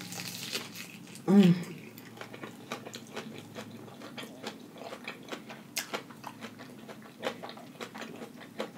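A bite into a lettuce-wrapped veggie burger with a crisp lettuce crunch, then close-up chewing with many small wet clicks. A short hummed "mmm" about a second and a half in is the loudest sound.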